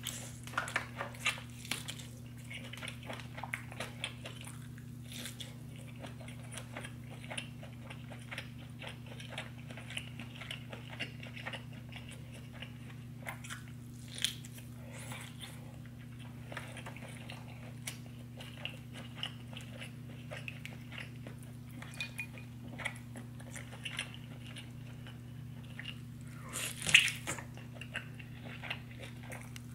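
Close-miked eating of a seafood boil: chewing and biting with many small mouth clicks, and a louder burst near the end, over a steady low hum.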